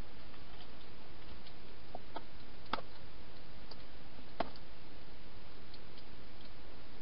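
Steady hiss with a few sharp clicks and faint ticks from a hedgehog feeding inside a clear plastic feeding box. The two loudest clicks come about two and three-quarter seconds and four and a half seconds in.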